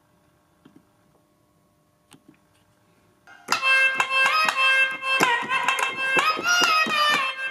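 A few soft clicks over a faint steady hum, then about three and a half seconds in loud keyboard-played electronic music starts: sustained lead notes that glide up and down in pitch, with sharp percussive hits.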